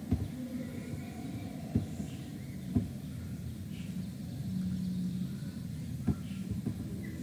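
Low, steady background rumble of stadium ambience on an athletics broadcast, with a few sharp knocks: one at the start, two about two and three seconds in, and one about six seconds in.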